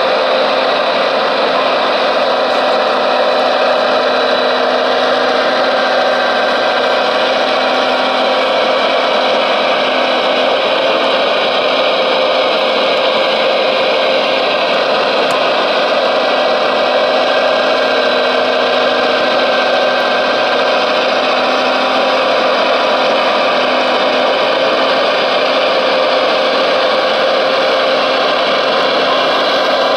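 Radio-controlled Liebherr 970 excavator model running: a steady mechanical hum with a high whine from its motors as it works.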